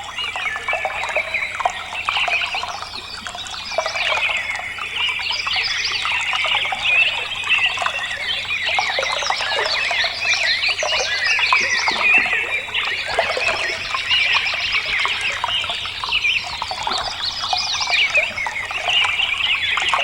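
A flock of small backyard birds chirping and twittering all at once, a dense, unbroken chatter of many overlapping calls.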